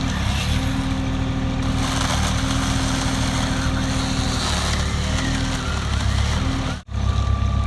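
A motor running steadily with a low, even hum. The sound drops out for an instant near the end.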